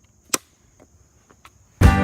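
A single sharp chop of a blade into wood about a third of a second in, followed by a few faint taps. Near the end, loud acoustic guitar music starts abruptly.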